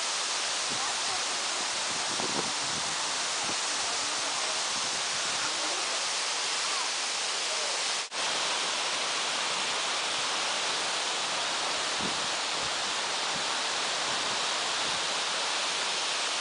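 Waterfall pouring, a steady rushing hiss; it breaks off for an instant about eight seconds in, then carries on unchanged.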